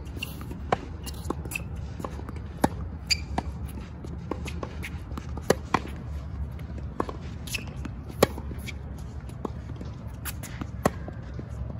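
Tennis ball being hit back and forth with rackets during a baseline rally on a hard court: a string of sharp pops from the strokes and bounces, some loud and close, others fainter, over a steady low rumble.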